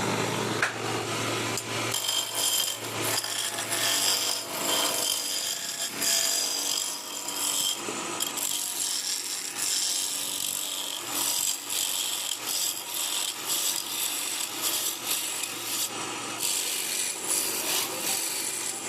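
A tool working wood, making a continuous scratchy scraping noise that rises and falls unevenly.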